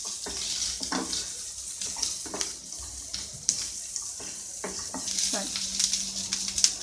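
Sliced onions sizzling in oil in a frying pan, stirred with a wooden spatula that scrapes and knocks against the pan now and then.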